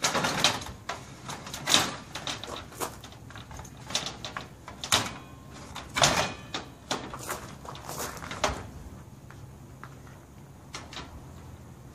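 Circular saw with a carbide-tipped blade cutting aluminum diamond plate, heard as an irregular run of loud bangs and rattles over a low motor hum as the blade chatters in the cut. The unsupported sheet is flexing into the blade. The banging dies down about nine seconds in.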